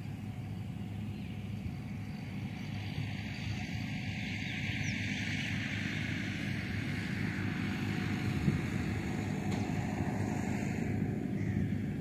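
Combine harvester running in the distance as it cuts wheat, a steady low engine drone that grows slowly louder as the machine draws nearer.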